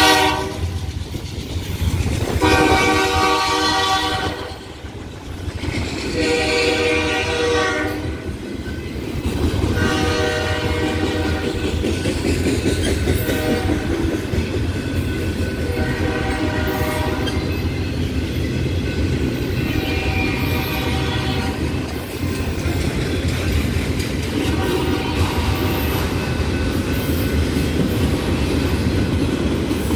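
BNSF locomotive's air horn sounding a salute: a string of blasts, roughly every three to four seconds, growing fainter. Under them the steady rumble and clickety-clack of empty autorack cars rolling past, louder after the first few blasts.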